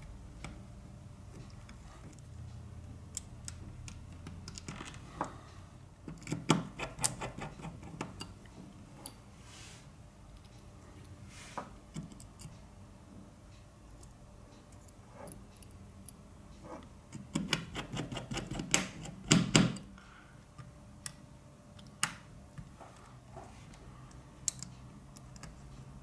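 Small repair tools clicking and tapping on an opened smartphone's internals: a plastic spudger prying at connectors and a precision screwdriver working mainboard screws. Single sharp clicks are scattered throughout, with two runs of quick rattling clicks, about a quarter of the way in and again about two-thirds through.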